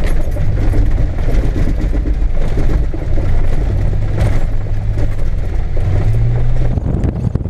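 A vehicle engine running as it drives, a steady low hum that rises a little in pitch about six seconds in.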